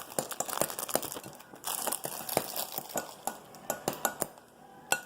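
A spoon stirring in a bowl, clinking and scraping against its side in quick irregular taps that die away near the end, as slime ingredients and activator are mixed.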